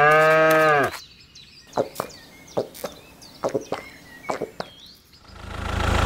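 A low, moo-like call with a rising pitch that holds, then drops off about a second in. Scattered knocks and clicks follow, and a low motor hum swells in near the end.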